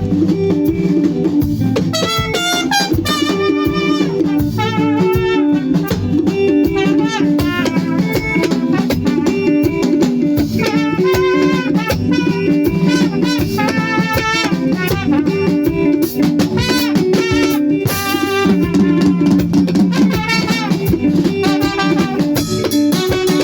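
Band music: a drum kit keeping a beat under a melody line with vibrato, with a steady bass pattern.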